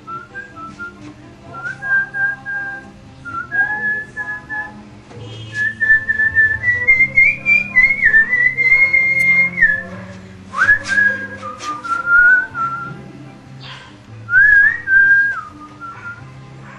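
A man whistling a tune in short phrases, along with a song playing on a stereo in the background.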